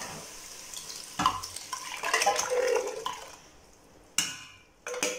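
A metal spoon scraping and clinking inside a tin can as thick coconut milk is scooped out into a cooking pot, with two sharp clicks near the end. A faint sizzle from the pot fades out partway through.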